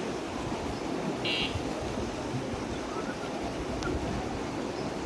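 Steady outdoor wash of wind and water, with one short, high buzzing tone about a second in.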